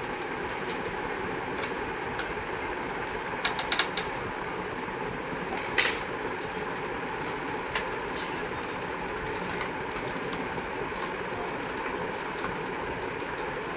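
Light clicks and clatter over a steady background hum, with a quick cluster of clicks about three and a half seconds in and a short rattle near six seconds.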